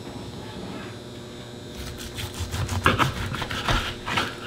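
Knife sawing through a raw ribeye roast on a cutting board: a run of quick, irregular cutting strokes starting about two seconds in, over a faint steady hum.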